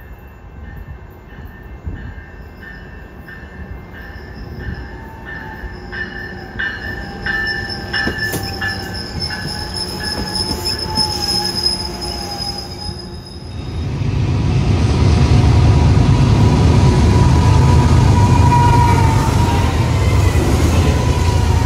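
Metrolink commuter train rolling along the platform with its wheels squealing in steady high tones and clicking over rail joints about twice a second. About fourteen seconds in, this gives way to the louder, steady low rumble of BNSF diesel freight locomotives passing close by, pulling double-stack container cars.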